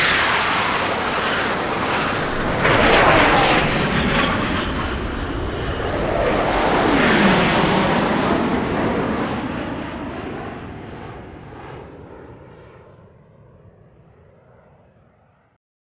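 Aircraft flying past: loud engine noise whose pitch sweeps down as it passes about halfway through, then fading away to silence near the end.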